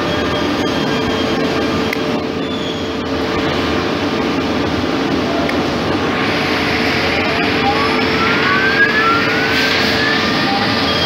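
Door lock-mortising machine running with a steady motor hum; about six seconds in a higher hiss comes up, with a rising whine as a motor spins up.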